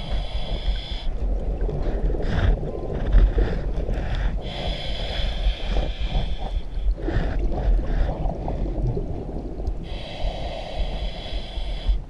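Scuba diver breathing through a regulator underwater: three long inhalations about five seconds apart, each a hiss with a high whistling edge, and between them the rough, gurgling rumble of exhaled bubbles.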